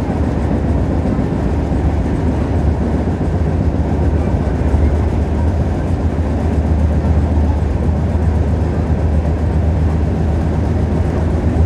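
Running noise of an Indian Railways LHB passenger coach heard from inside the coach as the train gains speed through about 75 to 80 km/h: a steady deep hum with an even rumble of wheels on rails above it.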